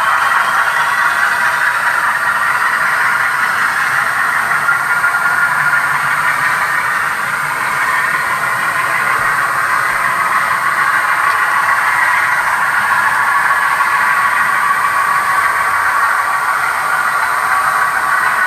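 Atlas GE U36C model locomotive running, its drive giving a steady high-pitched whine and squeal with no low rumble: a noisy-running mechanism.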